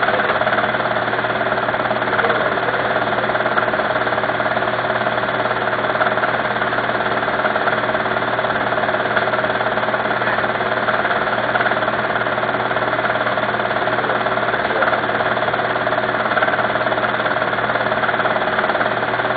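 A small machine running steadily, an even mechanical whirr that does not change in speed or level.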